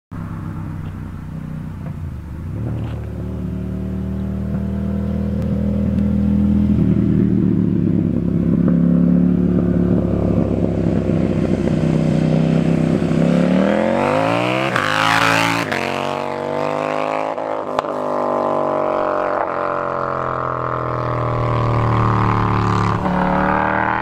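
KTM 790 Duke's parallel-twin engine and exhaust: a steady engine note grows louder as the motorcycle approaches. The engine revs up sharply, rising in pitch, as the bike accelerates past close by, then keeps running loudly as it rides away.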